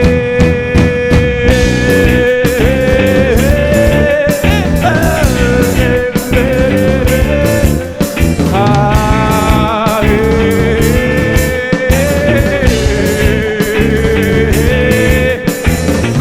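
Rock band playing an instrumental passage between verses: a steady drum beat and bass under a long lead melody line that bends and wavers in pitch.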